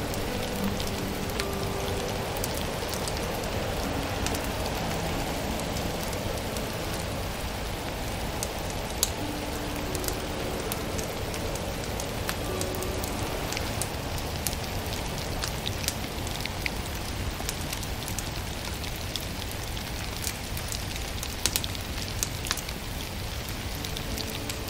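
Wood fire crackling, scattered sharp pops over a steady hiss, with a few faint soft music notes now and then.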